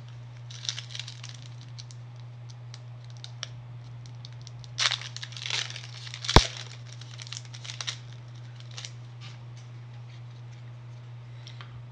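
Foil Pokémon booster pack being torn open, its wrapper crinkling and crackling in scattered bursts, with one sharp snap a little past halfway. A steady low hum runs underneath.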